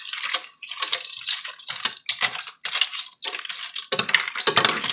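Clam and mussel shells clicking and clattering in a cooking pan in irregular bursts, a wet rattle as the shellfish are worked in the pan.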